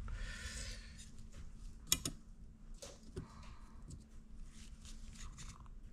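Gloved hands handling small tools and a bolt on a towel-covered bench: a rustle at the start, a sharp click about two seconds in, then faint taps and scrapes as the bolt is laid against a steel ruler and marked with a pencil.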